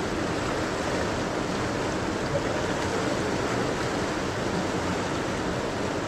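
Seti River water flowing: a steady, even rush of running water with no breaks.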